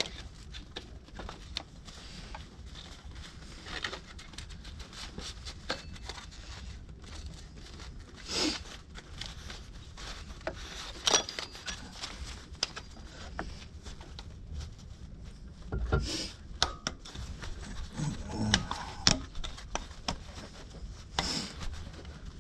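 Hands fitting a serpentine belt over engine pulleys: scattered light clicks, rubbing and fabric rustle, with a few sharper knocks through it.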